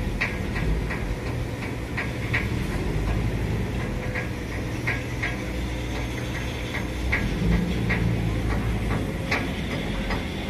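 A boat engine running with a steady low hum, overlaid by scattered sharp ticks at uneven intervals.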